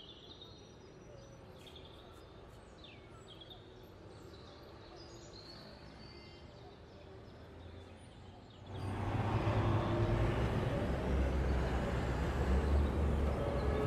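Outdoor ambience: birds chirping over a faint background. About two-thirds of the way through, a much louder street ambience with a low traffic rumble comes in suddenly.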